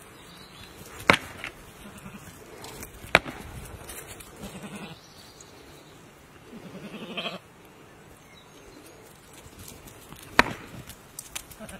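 Rams butting heads: three sharp cracks of horn on horn, about a second, three seconds and ten seconds in. Between the clashes a sheep bleats twice with a wavering call.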